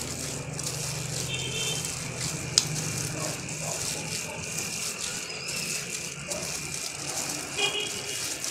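Thin plastic food-prep glove crinkling and rustling as a hand squeezes and kneads wet grated cassava in a bowl, with one sharp click about two and a half seconds in.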